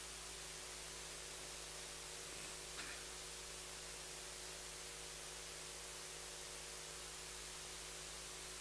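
Faint, steady electrical mains hum and hiss from the microphone and sound system, with one brief faint click about three seconds in.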